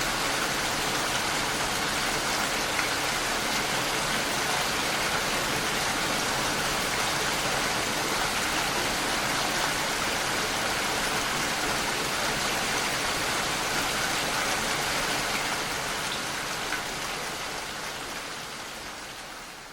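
Steady rainfall, a dense even hiss of many drops, fading out gradually over the last few seconds.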